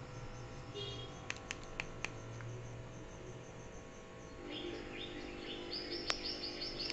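A few light clicks, then the soundtrack of a 4K nature video starting through an old CRT TV's speaker, with repeated high, bird-like chirps several times a second, growing louder toward the end.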